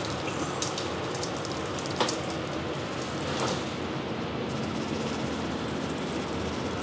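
Dry rub shaken from a shaker bottle, the granules pattering onto a raw ribeye and the cutting board, with a couple of sharp clicks, over a steady background hiss.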